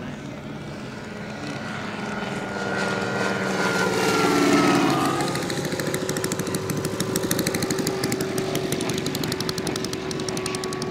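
Valach 210 engine and propeller of a large-scale model Fly Baby passing low and close, loudest about four seconds in, with its pitch dropping as it goes by. The engine is then throttled back to an even, pulsing idle as the plane lands and rolls out on the grass.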